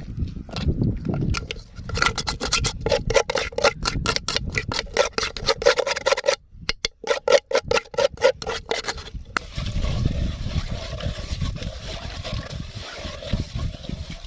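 Rapid, rhythmic scraping strokes, about five a second, with a short pause in the middle. After that comes a steady rough noise.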